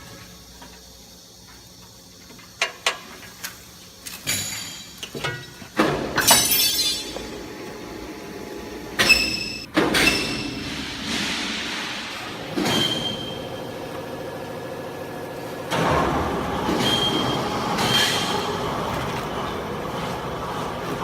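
Vertical cardboard baler being worked: metal knocks, clanks and a sliding rattle from its doors and chamber, then about two-thirds of the way through its hydraulic power unit starts and runs steadily.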